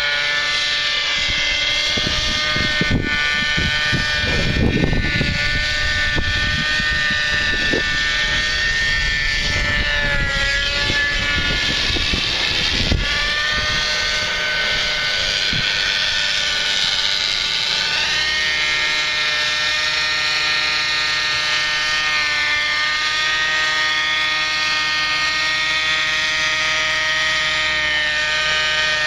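Thunder Tiger 30 nitro RC helicopter in flight: its small two-stroke glow engine and rotors give a steady high whine. The pitch dips and rises a few times as it manoeuvres. A low rumble comes and goes from about two to thirteen seconds in.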